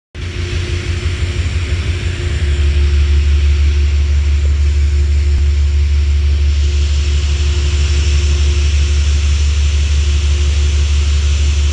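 Steady low engine rumble with a steady hum above it, typical of an idling train engine. It grows louder about two and a half seconds in and then holds level.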